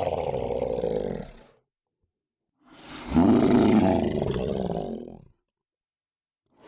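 Monster growl sound effects: a deep, rough, drawn-out growl fades out in the first second and a half. After a short silence a second growl of about two and a half seconds swells up and dies away.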